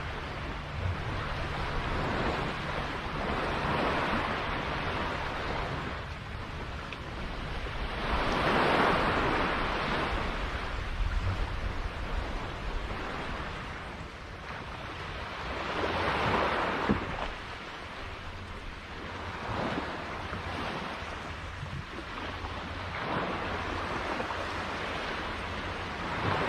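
Sea waves washing in and drawing back, each swell rising and fading every few seconds, over a low steady drone.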